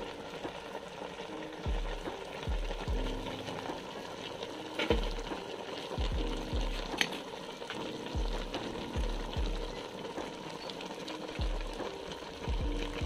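Crabs and young jackfruit sizzling in a steel cooking pot, a steady hiss, under background music with a low bass beat. A couple of sharp clicks come through about five and seven seconds in.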